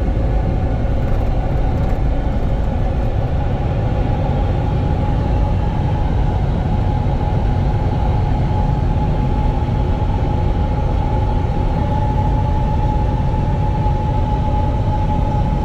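Hyundai Ioniq 5 N electric car being driven, heard from inside the cabin: a steady, loud rumble of tyre and road noise with a steady high whine running through it.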